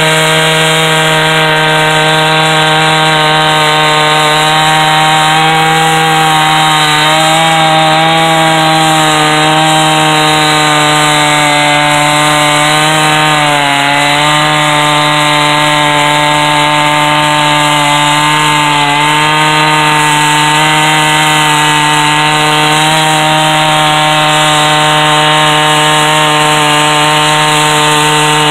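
Chainsaw in a chainsaw mill running steadily under load, ripping a poplar log lengthwise into 1.5-inch boards. The engine note sags briefly about halfway through as the cut loads it, then recovers.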